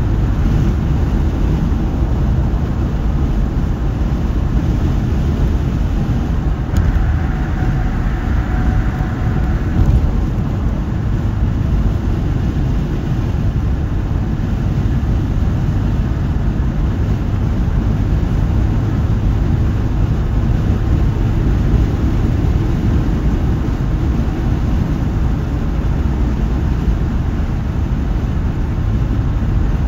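Steady tire and road noise of a car cruising at highway speed, heard from inside the cabin. A higher hum joins it for about three seconds, about seven seconds in.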